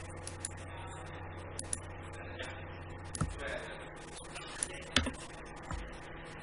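Scattered clicks of a computer mouse and keyboard, with a few louder knocks about halfway through and near the end, over a low hum that stops about halfway.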